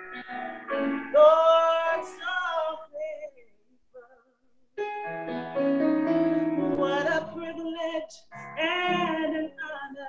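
A woman singing with piano accompaniment, with vibrato on the held notes and a pause of about two seconds midway.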